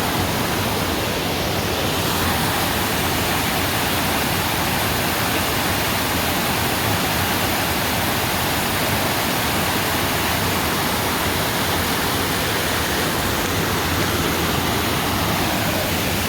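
Waterfall pouring, a steady, unbroken rush of water.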